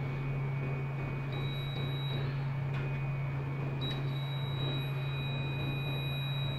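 A steady low hum with a thin high electronic beep from a clamp meter's continuity buzzer. The beep starts about a second in, breaks off after about a second, and comes back and holds near four seconds in as the test probes sit on the compressor terminals, which read a low winding resistance.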